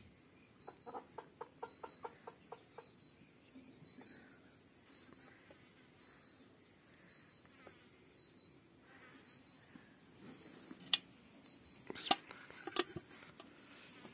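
Quiet farmyard background with a faint, high chirp repeating about twice a second. Early on there is a quick run of about ten clucking notes, and near the end a few sharp knocks, the loudest sounds.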